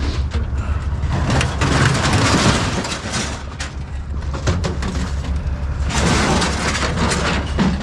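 An engine running steadily, under a dense crackle of clattering and knocking noises.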